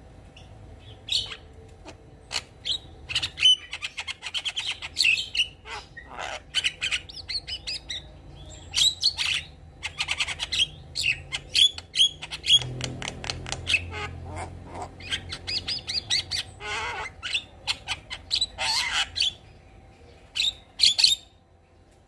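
Javan myna singing a varied song of sharp whistles, rapid chattering runs and harsh squawks, which stops just before the end.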